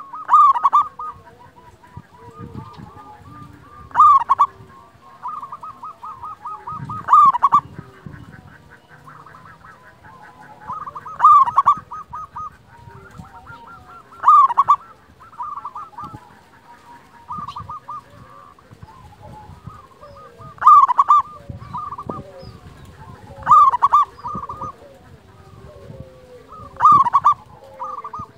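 Zebra dove (perkutut) singing: repeated phrases of quick, clipped cooing notes, each ending in a loud 'kung' note, about every three to four seconds.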